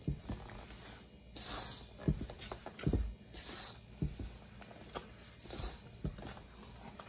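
Hands kneading and squeezing a sticky flour dough in a stainless steel bowl: soft squishing and rustling of flour, with a few dull thumps at irregular intervals as the dough is pressed down.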